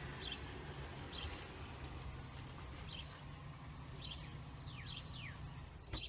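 A small bird chirping outdoors, short high chirps about once a second, over a steady low rumble.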